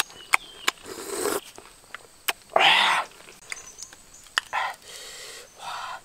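Close-up eating sounds of a mouthful of lettuce and oyster: wet crunching and chewing with lip smacks and sharp mouth clicks, the loudest crunch a little before halfway.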